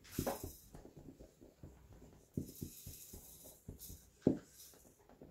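Hands pressing and patting a shredded chicken pastilla filling down into a filo-lined dish: soft pats and thuds with a light rustle, the loudest pat about four seconds in.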